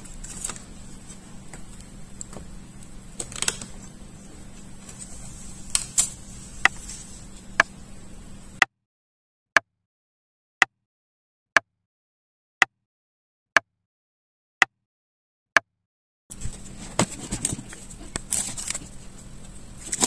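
Small clicks and scrapes of fingers handling the laptop's battery cable plug, over a faint steady hiss. About nine seconds in the background cuts out and a clock ticks seven times, once a second, marking off a countdown, before the room hiss returns.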